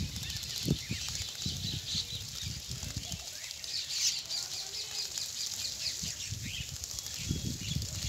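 A flock of sparrows chirping busily while they bathe in shallow water, with irregular soft wing flutters among the chirps.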